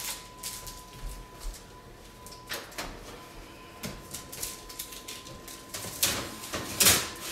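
Kitchen wall oven in use: scattered knocks and clatters as a baking sheet of cookie dough is slid onto the oven rack, with the two loudest knocks near the end as the oven door is handled and shut. A faint steady high tone sounds underneath.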